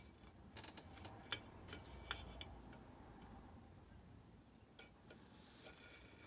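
Near silence with a handful of faint, light ticks and scrapes from a craft knife and fingertips working decoupage paper glued onto a painted silver-plated tray. The clearest tick comes about a second and a half in.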